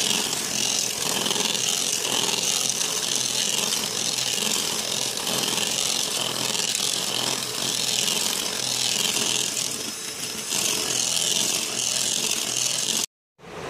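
Electric hand mixer running steadily, its beaters whisking eggs and sugar into a thick, fluffy foam in a bowl. The sound stops abruptly about a second before the end.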